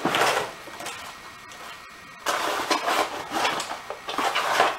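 Rustling and handling noise from paperwork and accessories being moved about, in three bursts: a short one at the start, a longer one in the middle and another near the end.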